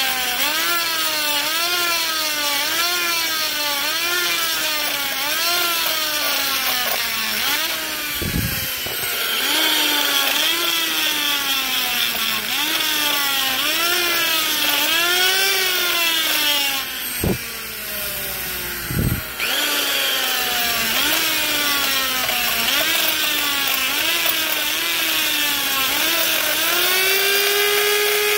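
Die grinder spinning a carbide burr against the cast-iron valve seat area of a Chrysler 302 cylinder head, blending the ledge around the intake seat. Its whine sags in pitch and climbs back about once a second as the burr bites and is eased off, drops out briefly a couple of times past the middle, and runs free at a steady higher pitch near the end.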